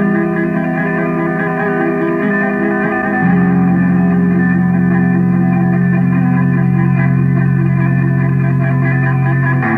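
Lo-fi cassette home recording of droning, effects-laden guitar music, dubbed through the air from one tape recorder to another: a sustained chord that shifts to a louder, lower held chord about three seconds in, with a brief break just before the end. The sound is dull, with little treble.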